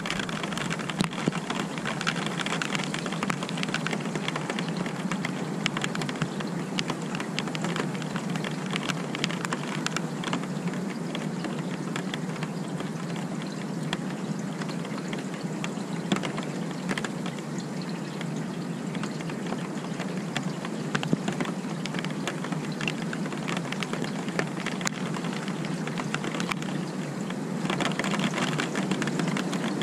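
Steady rain falling, with many close drops ticking on nearby surfaces; it grows a little louder near the end.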